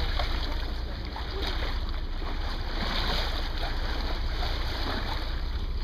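Water rushing along the hull of a moving boat, with a low steady engine hum and wind on the microphone.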